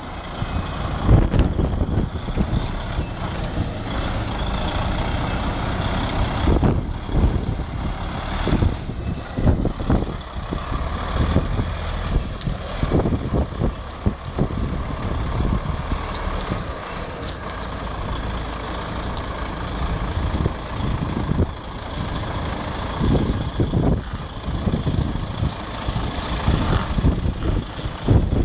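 DAF CF articulated lorry's diesel engine running at low speed as it reverses a semi-trailer, with a reversing alarm beeping.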